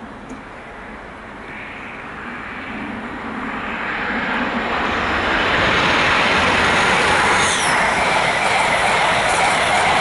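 An East Midlands Railway HST (InterCity 125) approaching and running through the station. The noise of its diesel power car and wheels on the rails grows steadily over the first six seconds, then holds loud as the coaches go by, with a brief high squeal about seven seconds in.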